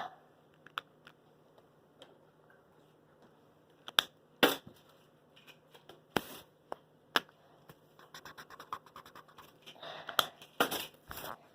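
Plastic Rubik's cube being twisted by hand: a few separate sharp clicks, then a quicker run of small clicks and rattles as faces are turned in succession near the end.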